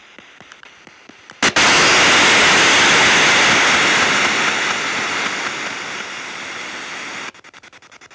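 SP7 spirit box radio scanner: its quick, quiet sweep ticking gives way about a second and a half in to a burst of loud radio static. The static fades slowly and cuts off suddenly near the end, when the rapid ticking of the sweep comes back.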